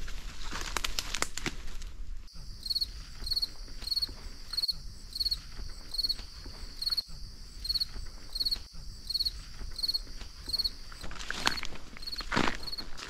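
Footsteps rustling through forest undergrowth at the start and again near the end. In between, a high, even chirp repeats about twice a second over a steady high hiss, typical of an insect.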